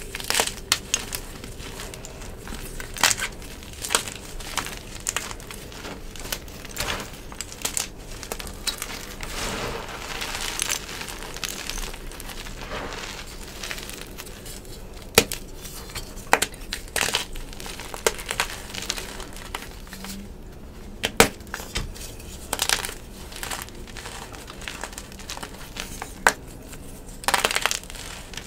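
Blocks of gym chalk, some dyed yellow, being crushed and squeezed in bare hands: irregular, medium-crunchy cracks and crackles as the blocks break, with softer crumbling of chunks and powder in between.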